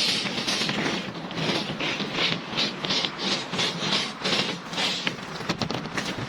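Rhythmic back-and-forth scraping of a hand tool on building material, about three strokes a second, with a few sharp ticks near the end.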